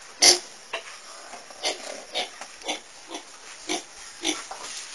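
Footsteps at a walking pace, a short scuffing step about every half second.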